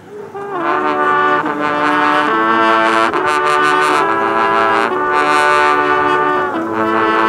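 An ensemble of French hunting horns (trompes de chasse) playing a tune together in unison. It is a string of held brass notes that change pitch every half second to a second or so, and it comes in after a brief pause at the start.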